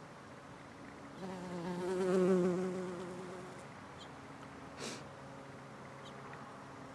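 Bumblebee buzzing in flight close to the microphone, swelling and then fading away over about two seconds. A short click follows near the end.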